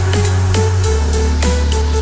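Background electronic dance music with a deep sustained bass and a steady beat; the bass note drops lower about a second in.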